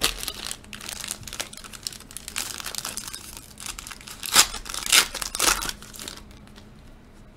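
Foil wrapper of a football trading-card pack being torn open and crinkled by hand: a continuous crackle with two sharp, loud rips about four and five seconds in, stopping about six seconds in.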